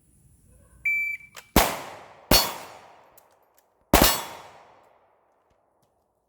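A shot timer's start beep, a short high tone about a second in, followed by three pistol shots: the first two close together, the third about a second and a half later, each trailing off in a long echo.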